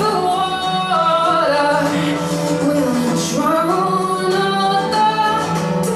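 Recorded song with a female voice singing a gliding melody over a steady low backing.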